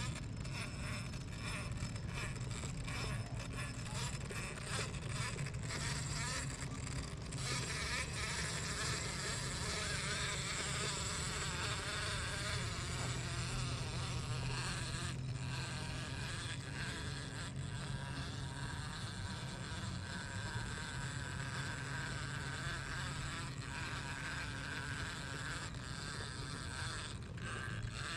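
The brushless electric motor and geared drivetrain of an Axial RBX10 Ryft 1/10-scale RC rock bouncer running steadily as it drives over dirt and rocks.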